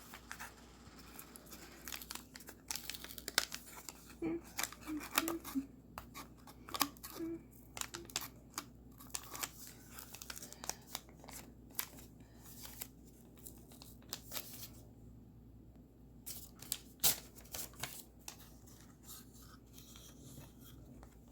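Packaging being unwrapped by hand: paper and plastic rustling, crinkling and tearing in irregular bursts with sharp little snaps, quieter for a couple of seconds near the end.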